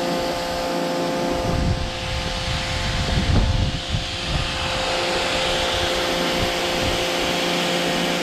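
Powerworks 1700 PSI electric pressure washer running steadily, its motor and pump giving a steady whine while the white 40-degree nozzle sprays a wide, misty fan of water with a hiss.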